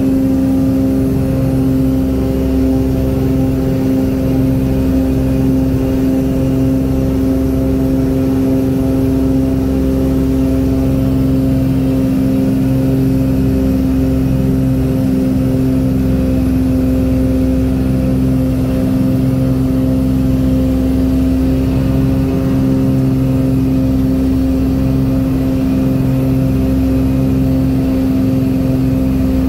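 Light airplane's engine and propeller droning steadily at approach power, heard inside the cockpit: one constant tone with overtones, no change in pitch or level.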